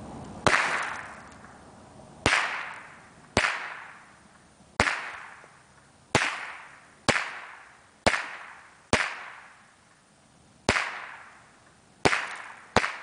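Eleven shots from a Marlin 60SB semi-automatic .22 LR rifle fired at an uneven pace, roughly one a second, with two shots close together near the end. Each is a sharp crack followed by an echo that fades over about a second.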